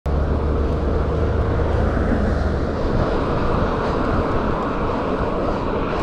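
Steady low rumble of wind and road noise, as heard while riding, with a faint steady whine in the first half.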